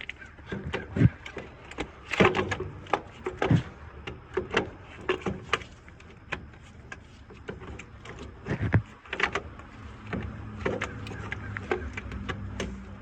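Irregular metal clanks, knocks and clicks of hand tools and a truck starter motor as the starter is worked into place on the engine, with a few heavier thumps.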